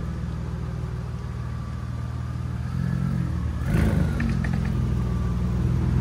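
Straight-piped Audi S4 turbocharged V6 running at a low, steady idle. A little past halfway it rises briefly in pitch with a short clatter, then gets gradually louder toward the end.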